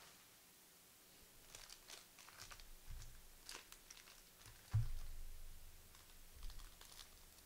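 Faint crinkling and rustling of trading card pack wrappers and cards being handled, with light clicks and one dull thump about five seconds in.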